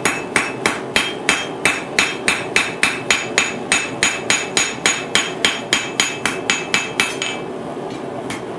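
Blacksmith's hand hammer striking the red-hot end of a 10 mm rod on an anvil, flattening and flaring it out into a spoon bowl. The blows come at about four a second, each with a short metallic ring, and stop about seven seconds in.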